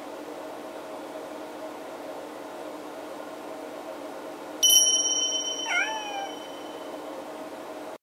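A cat meows once about six seconds in, a short call that rises and then falls in pitch. Just before it a sharp, bright ding rings on for about two seconds, over a steady low hum.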